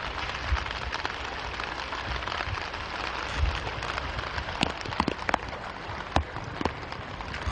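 Steady hiss of rain and flowing floodwater, with low rumbling thumps underneath and a few sharp clicks or taps in the second half.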